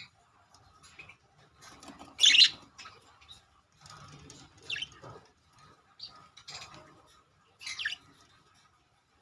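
Budgerigars chirping in short high calls every second or two, the loudest about two seconds in, with faint scratching and rustling between calls.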